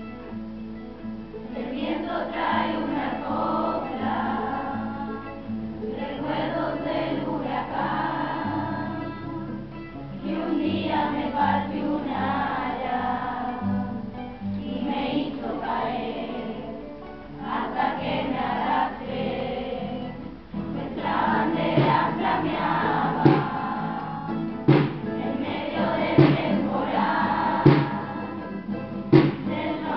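Children's choir singing a folk song in Spanish in unison phrases, accompanied by strummed acoustic guitar. From about two-thirds of the way through, a drum beats a steady pulse under the singing.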